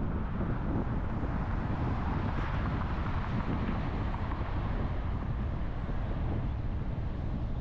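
Wind and road noise from a car driving: a steady low rumble under a rushing hiss that swells about two to three seconds in.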